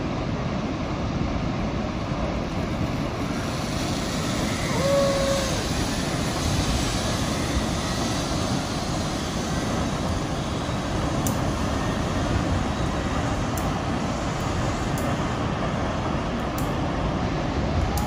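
Steady rushing noise, with a zipline rider's short distant shout about five seconds in and another at the very end.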